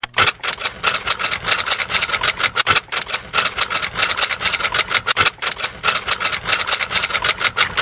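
Typing sound effect: a fast, steady run of key clicks.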